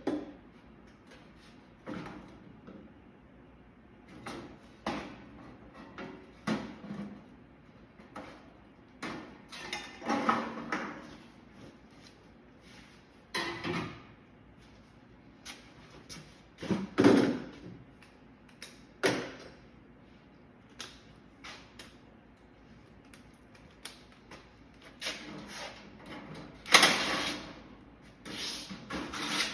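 Irregular clanks, knocks and scrapes of sheet-metal and parts being handled as an air-conditioning unit is taken apart, with two louder bangs, one a little past the middle and one near the end.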